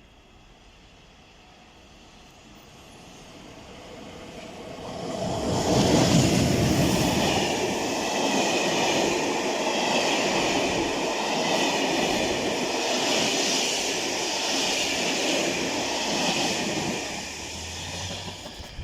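A train passing close by: its noise builds over a few seconds, runs loud and steady with rail and wheel noise for about ten seconds, then dies away near the end.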